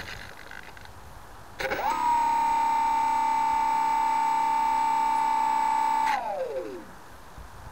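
Bixler 2's brushless electric motor and 7x6 propeller spinning up with a quickly rising whine, holding a steady high whine for about four seconds, then winding down in a falling glide. The throttle is still live after the landing because the kill throttle switch was not engaged.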